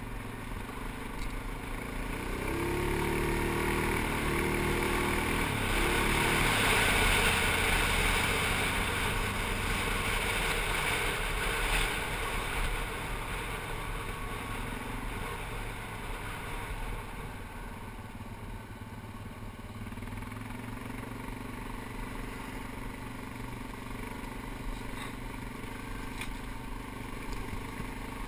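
ATV engine running as it rides along a gravel road, with the rush of motion and loose gravel under the tyres; louder for the first dozen seconds, then easing off.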